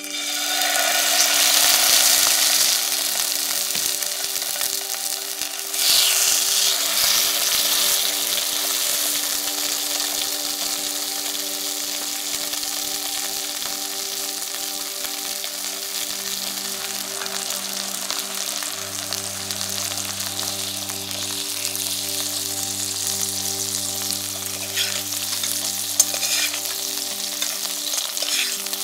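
Raw pork chops sizzling and spitting in hot olive oil in a steel frying pan. The sizzle starts abruptly as the first chop goes in and flares again about six seconds in as the second is added, then settles to a steady frying hiss; the chops went in without being patted dry, so the wet surface spatters.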